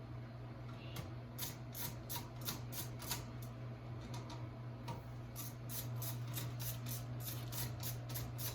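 Wall switch and hand tools being worked on: a run of light, sharp clicks, sparse at first, then about three a second from a second and a half in, over a steady low hum.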